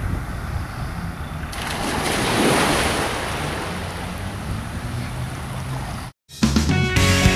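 Sea surf washing in with wind, one wave swelling about two seconds in. Near the end it cuts off abruptly, and after a split second of silence music begins.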